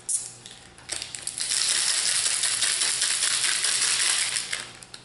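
Empty foil booster-pack wrapper crinkled and crumpled in the hands: a dense crackling of many small crackles that starts about a second in and lasts about four seconds, after a single short click at the start.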